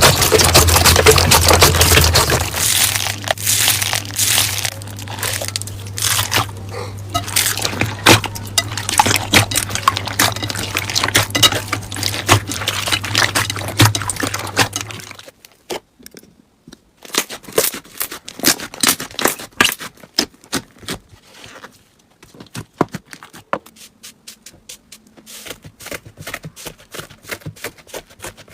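Slime being squeezed and poked, giving dense crackling and popping clicks that thin out into separate pops in the second half. A low steady hum runs under the first half and stops about halfway through.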